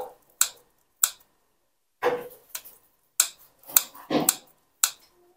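Kitchen scissors snipping pitted dried red dates (jujubes) into small pieces: a string of about eight sharp snips, roughly one every half second.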